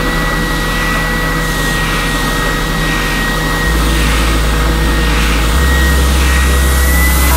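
Oscillating spindle sander running with a steady high whine, an ash hammer handle sanded against its drum. The hiss swells and fades regularly, under a second apart.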